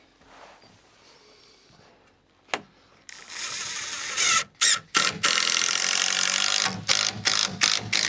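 A single sharp click, then a power tool run hard in trigger pulls with a dense ratcheting rattle, stopping briefly a few times and ending in a string of short bursts.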